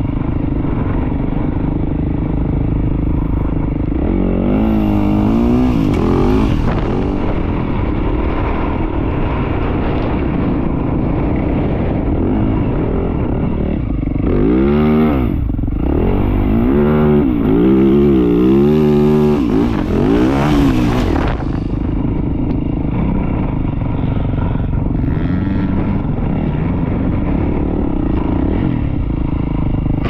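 Yamaha YZ450F's single-cylinder four-stroke engine riding through sand, revving up and falling back in hard bursts a few seconds in and again through the middle, with wind rumbling on the microphone.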